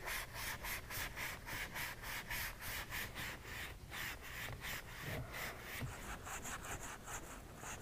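3M abrasive pad scrubbed quickly back and forth against the felt lining inside a truck door's window channel: a faint, even rasping of about four strokes a second. The felt is being roughed up so the in-channel vent visor will seat properly.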